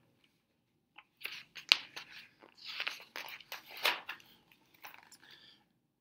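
Paper pages of a large picture book being handled and turned: a few seconds of crinkling and rustling, with one sharp snap of paper nearly two seconds in.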